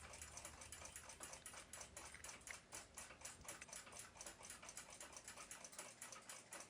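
Faint, quick, even ticking of a 1949 German flip clock's 7-jewel Indra movement running.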